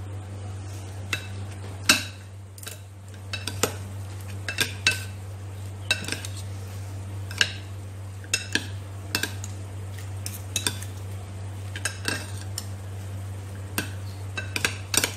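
A metal fork and spoon clink and scrape against a ceramic bowl as they stir cooked rice with raw egg yolks, giving irregular sharp clinks about once or twice a second. A steady low hum runs underneath.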